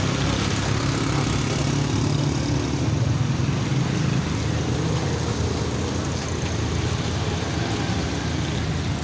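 A motor vehicle engine idling steadily, a low hum over general street traffic noise.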